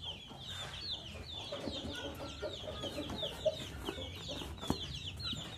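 Chickens clucking, with a fast run of short, high chirps several times a second, and two sharp clicks about three and a half and just under five seconds in.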